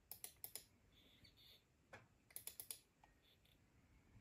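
Computer mouse button clicking in quick double-clicks to open icons. There is a cluster of sharp clicks at the start, a single click about two seconds in, and another quick cluster just after it.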